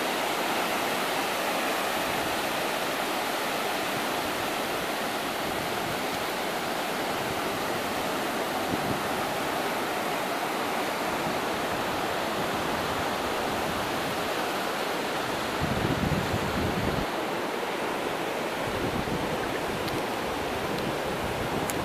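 Steady rushing wash of surf breaking on a flat sandy beach of the Bay of Bengal. About two-thirds of the way through comes a brief low rumble lasting about a second.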